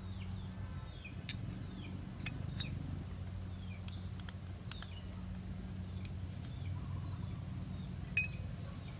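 Scattered light clinks and taps of a sauce bottle and spoon against a clay bowl as meat is seasoned, with small birds chirping short falling notes and a low steady hum behind.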